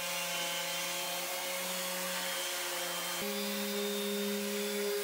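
Electric sander with a dust-extraction hose running steadily on the steel of a boat's bilge, sanding off surface rust. About three seconds in there is a click, and its hum steps up slightly in pitch.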